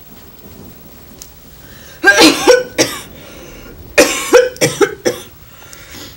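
A woman coughing in two fits, about two seconds in and again about four seconds in, each of two or three coughs.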